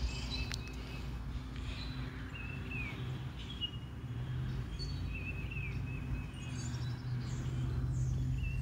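Outdoor ambience: a few short bird chirps now and then over a low steady hum.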